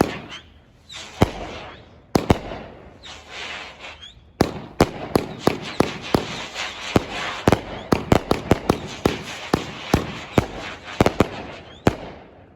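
Aerial fireworks finale: a few sharp bangs spaced out over the first four seconds, then a rapid barrage of bangs, several a second, with a crackling hiss between them. The barrage stops just before the end.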